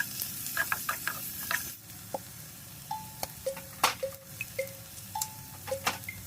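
Food sizzling in a frying pan as it is stir-fried, with frequent irregular clicks and scrapes of the stirring utensil against the pan.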